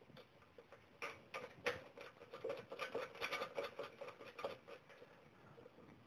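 Light plastic clicks and rubbing as small 3D-printed fittings are pushed into drilled holes in a sheet-metal laser-cutter lid and handled, busiest from about one to four and a half seconds in.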